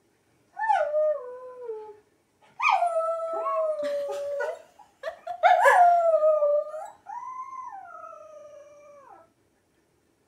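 Dogs howling: a small white Bichon-Maltese type dog howls along with a husky howling on a TV video. Four long howls, each falling in pitch at the end, the last one quieter.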